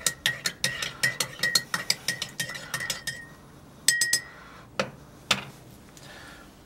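Metal teaspoon stirring tea in a mug, clinking against the sides about four times a second with a ringing tone. The stirring stops after about three seconds, followed by a few more clinks and two separate knocks as the spoon is lifted out and put down.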